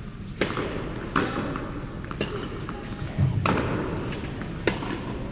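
Tennis ball bounced on an indoor hard court before a serve: five sharp thuds, a second or so apart, echoing in the hall.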